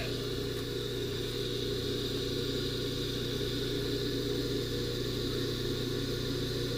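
Steady hum of a small electric motor running at a constant speed, with a faint high whine over it.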